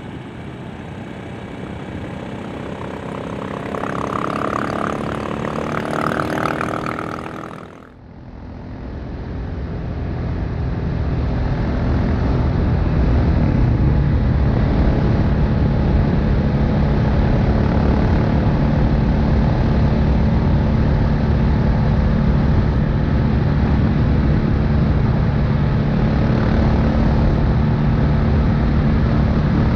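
Exhaust note of a KTM 690 Enduro R's single-cylinder engine under way, rising in pitch as it accelerates. About eight seconds in there is a sudden cut to a duller, muffled recording in which the engine grows louder over a few seconds and then runs at a steady speed.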